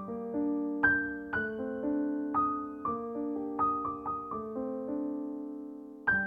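Background music: a slow, gentle keyboard melody, single notes struck about every half second and left to ring. Near the end one note dies away slowly before the next is struck.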